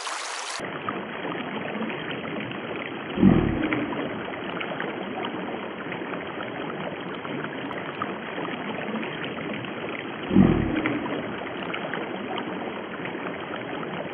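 Shallow creek water running steadily over stones and riffles. Two short, low thumps come about three seconds and ten seconds in.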